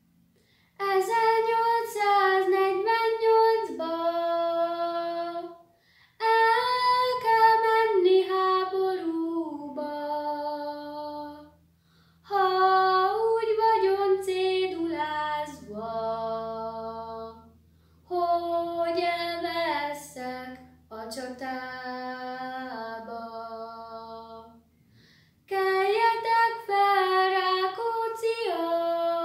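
A girl singing a song alone, without accompaniment, in phrases of about five seconds with short breaths between them.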